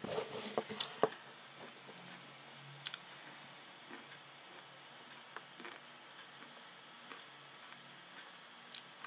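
Faint clicks and rustling: a short rustle with one sharp click in the first second, then scattered soft ticks.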